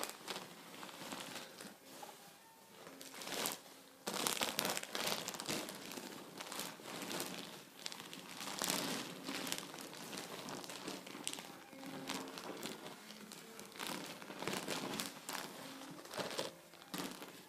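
A folded baby tent bed being handled and pushed into its carry bag, crinkling and rustling in irregular bursts.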